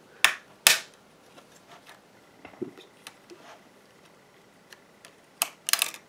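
Sharp plastic-and-metal clicks of a laptop RAM stick and its slot being handled: two clicks near the start, then a quick cluster of clicks near the end as the stick is pressed back into its slot.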